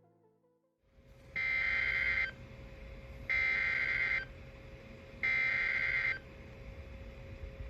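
Three EAS SAME header data bursts from NOAA Weather Radio station WNG586: high-pitched two-tone digital bursts, each about a second long and about a second apart, over steady radio hiss. They are the coded header that opens a severe thunderstorm warning alert.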